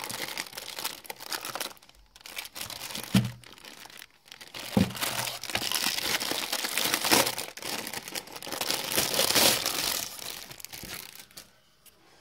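Thin clear plastic packaging bag crinkling and rustling as it is handled and pulled off a wireless router, with short pauses and two knocks a few seconds in. The crinkling stops about a second before the end.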